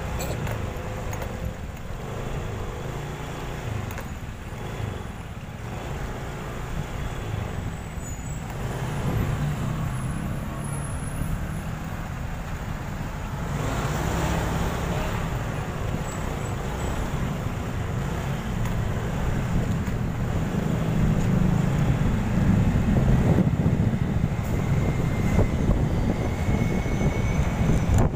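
Riding noise from a motorcycle on the road, heard from the rider's seat: a steady low rumble of engine and traffic that grows louder over the last several seconds.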